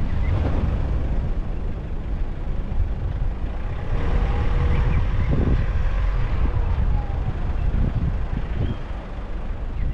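Steady low engine rumble of a moving vehicle, with wind noise on the microphone.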